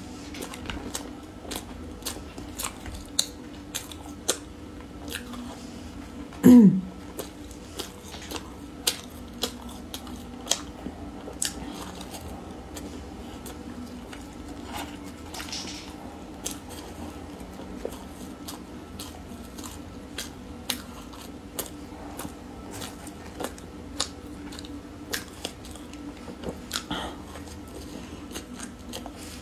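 Chewing and biting soft mini cream puffs dusted in crumbs, close to the microphone: a run of small, scattered mouth clicks over a faint steady hum. About six seconds in comes one louder, short sound that falls in pitch.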